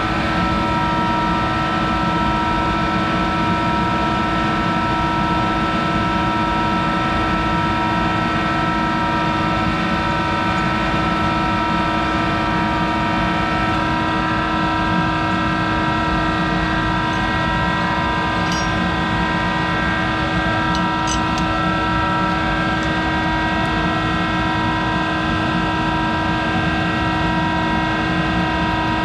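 Monarch 10EE metal lathe running with its spindle turning a small bronze part: a steady hum and whine from the machine's drive at an even level. A few faint ticks come about two-thirds of the way through.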